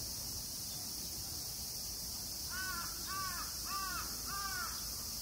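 A crow cawing four times in quick succession, each caw rising and falling in pitch, over a steady high-pitched hiss of insects.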